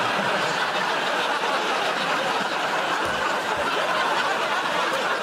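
Studio audience laughing without a break, a steady wall of laughter from many people.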